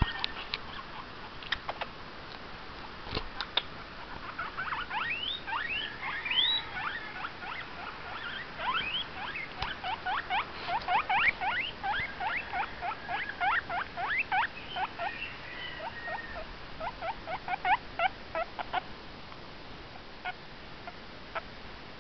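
Guinea pig squeaking: a long, rapid run of short high squeaks, several a second, starting about four seconds in and thinning out near the end, with a few scattered squeaks before and after.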